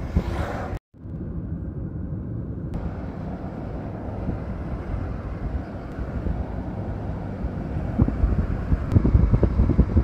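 Steady road and engine rumble of a moving car, with wind noise on the microphone. The sound cuts out for an instant just under a second in, and gusts of wind buffeting grow stronger near the end.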